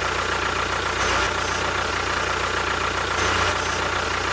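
Tractor-style engine running steadily at an idle-like pace, with a fast low chugging and a steady whine above it; it swells slightly twice.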